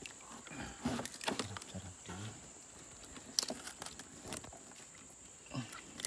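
Irregular knocks, clicks and rustles of a large fish and a nylon gill net being handled against the wooden floor of a small boat, with a low voice-like murmur in the first two seconds and a faint steady insect whine behind.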